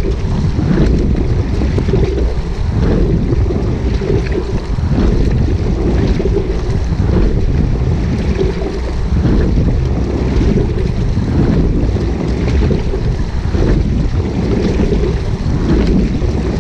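Single rowing scull under way: water rushing along the hull and wind buffeting the deck-mounted microphone, with a splash from the oar blades at each stroke, about every two seconds.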